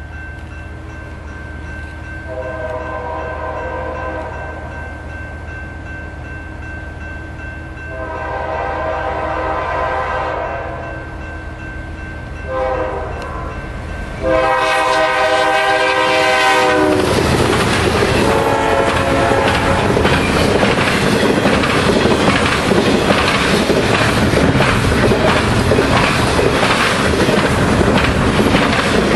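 Approaching freight locomotive's multi-tone air horn sounding the grade-crossing signal, long, long, short, long, each blast louder as it nears. About halfway in, the train reaches the camera and double-stack intermodal cars pass close by, a loud steady rumble with rhythmic wheel clicks over the rail joints.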